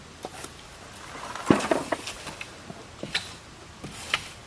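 A few scattered sharp knocks and clinks, the loudest about a second and a half in, with no machine running.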